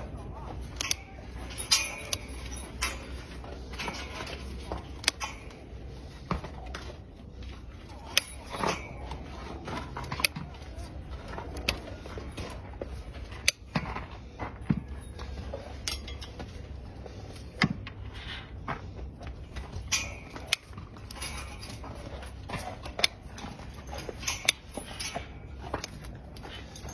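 Farrier's tools working on a horse's hoof: irregular sharp metallic clicks and scrapes over a low steady rumble.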